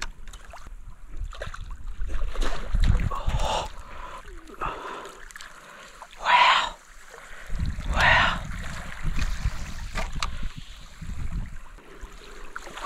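Water splashing in a shallow lagoon, in irregular surges, with gusts of wind buffeting the microphone.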